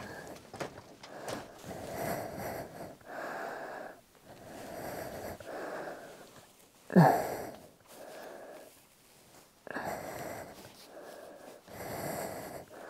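Heavy, steady breathing through a half-face respirator during strenuous overhead work, in breaths about a second long. About seven seconds in there is one short, louder sound that falls in pitch.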